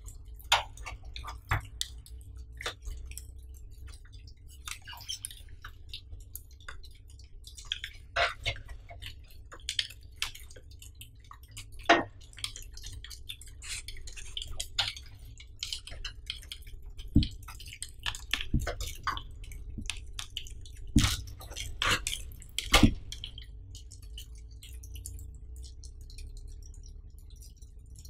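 Hands handling thin plastic wrap and a small plastic bag of screws: irregular crinkling and sharp clicks, a few louder snaps, over a steady low hum.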